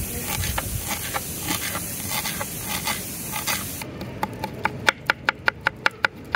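Kitchen knife chopping on a wooden cutting board, mincing green chilli and then ginger. Irregular taps over a steady hiss at first; about four seconds in the hiss stops and a quick even run of sharp chops follows, about five a second.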